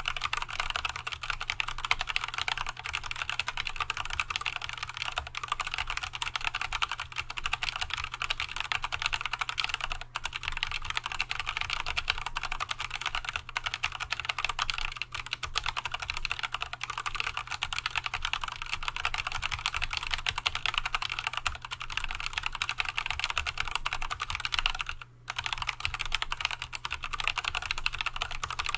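Fast continuous typing on an Archon AK87 hot-swap mechanical keyboard fitted with Tealios V2 linear switches that are not yet lubricated. The keystrokes run as a dense clatter, with a brief pause about ten seconds in and another a few seconds before the end.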